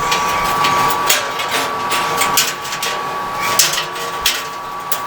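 Irregular light metallic clicks and rattles of a dryer's coiled heating-element wire being worked into the clips of the heater housing, over a steady high tone.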